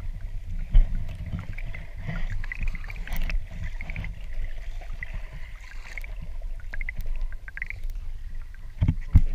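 Water sloshing and lapping against a camera held at the water's surface, heard as a muffled low rumble with small, irregular splashes. Near the end come louder splashes as water washes over the camera.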